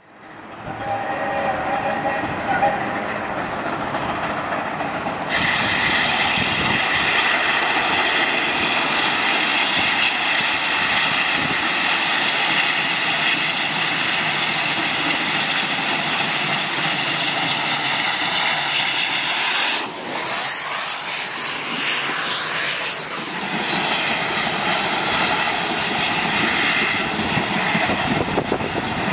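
4-8-2 steam locomotive No. 2685 hauling a passenger train, running with a steady loud hiss of steam over a low rumble. There is a short whistle blast about a second in. The hiss starts suddenly a few seconds later, breaks off briefly about two-thirds of the way through, then returns.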